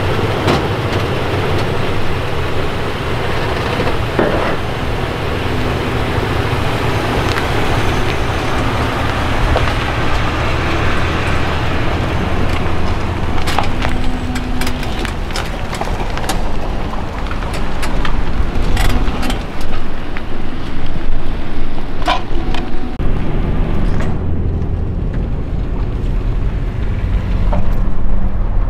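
Toyota Tundra pickup's engine idling steadily while hitched to a travel trailer, with scattered clicks and knocks over it; the low hum shifts about 23 seconds in.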